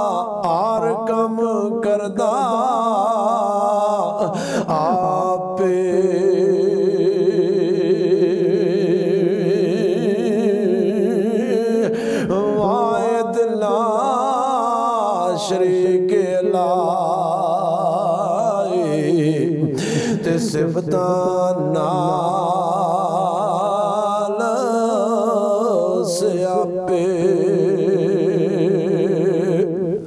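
A man singing a Sufi kalam in long, drawn-out, wavering notes, with brief breaks between phrases.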